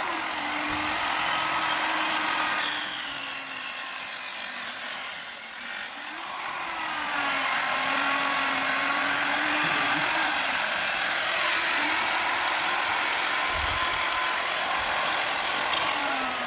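Small electric machines running together off solar power, with a steady hum that wavers slightly in pitch. A loud hiss joins about two and a half seconds in and stops suddenly about three and a half seconds later.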